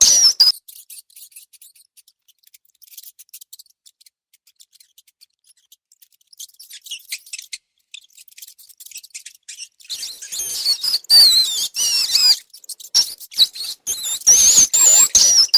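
Rats squeaking in high, wavering calls: a short burst at the start, a longer run of squeaks from about ten seconds in, and another near the end, with faint scratching and clicks in the quieter stretch between.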